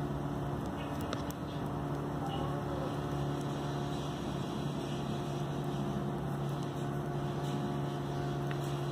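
A steady electrical hum holding a few even tones, with a few faint clicks.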